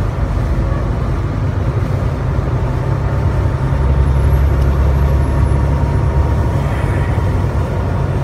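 Semi-truck's diesel engine and tyres droning low and steady, heard inside the cab, with the rumble swelling for a couple of seconds in the middle.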